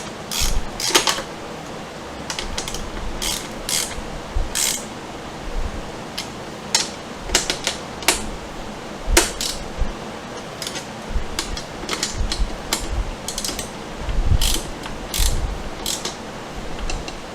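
Screws being tightened by hand with a clicking tool: sharp mechanical clicks in short, irregular runs, with an occasional low knock.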